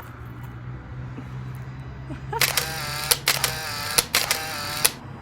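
A remote-control car's electronics beeping: a steady pitched tone lasting about two and a half seconds, starting about halfway in, broken by several sharp clicks.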